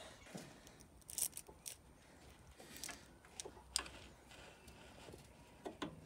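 Faint, scattered clicks and knocks of metal brake parts and hand tools being handled at a car's front brake while new pads are fitted, the sharpest click nearly four seconds in.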